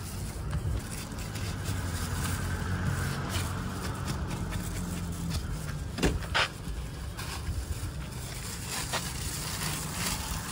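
A steady low engine hum runs under crinkling plastic bags and gloves, with a few sharp clicks as watermelon slices are handled and bagged, two of them close together about six seconds in.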